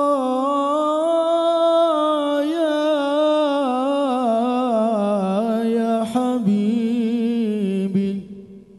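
Solo male voice singing an Arabic devotional song (sholawat) into a microphone: one long unbroken melismatic phrase on a held vowel, full of quick wavering ornaments, that slowly descends in pitch and ends about eight seconds in.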